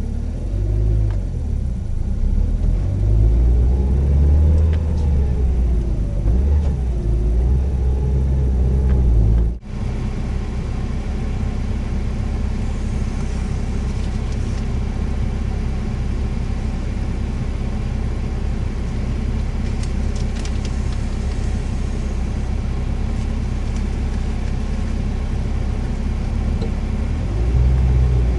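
Subaru WRX STI (VAB), heard on board, running with a low rumble. For the first ten seconds a whine wavers up and down. After a cut near ten seconds it settles into a steady drone.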